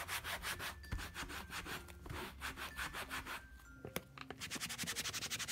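Cloth buffing a leather handbag briskly back and forth, about five strokes a second, polishing the leather after protective cream has been applied. The rubbing stops briefly about three and a half seconds in, with a light knock, then starts again strongly near the end.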